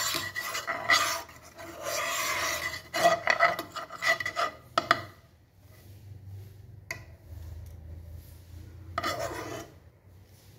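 A spoon rubbing a lump of fat around a textured non-stick frying pan to grease it. A quick run of scraping strokes fills the first five seconds; then it goes quieter, with a single click near seven seconds and one more scrape about nine seconds in.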